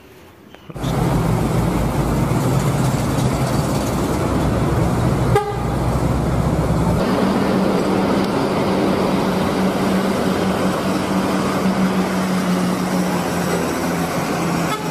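Heavy traffic of buses and trucks, with engines running in a steady drone and a vehicle horn sounding. The drone begins about a second in and changes character about seven seconds in.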